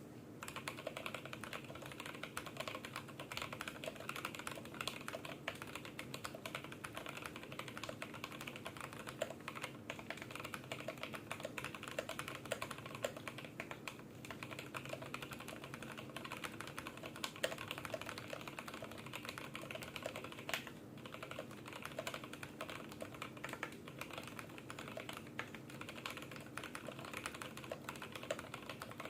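Continuous fast typing on an IDOBAO ID80 v1 mechanical keyboard with lubed, filmed Durock T1 tactile switches and PBT keycaps in an aluminium case: many keystrokes a second, over a faint steady background hum.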